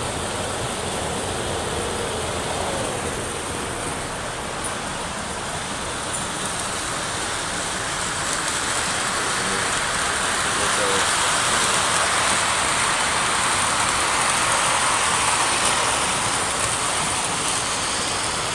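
Model trains running on the layout: a steady rolling rumble and hum that grows louder about halfway through as a train passes close by.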